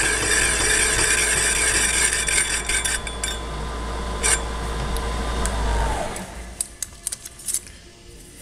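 Boring head's single-point cutter taking an interrupted cut in a sheet-steel electrical box cover at slow speed, scraping for about the first three seconds over the steady hum and whine of the spindle motor. About six seconds in the motor's whine drops and dies away as the machine winds down, leaving a few light metallic clicks.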